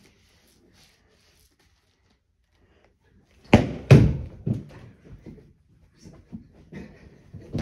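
Quiet at first, then two sharp thumps about three and a half seconds in: a bat hitting a squishy foam ball. A string of lighter thumps and knocks follows, as feet run across the carpeted floor.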